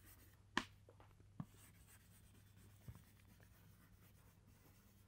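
Chalk writing on a chalkboard, very faint: a few light taps and strokes, the clearest about half a second in and fainter ones around one and a half and three seconds in.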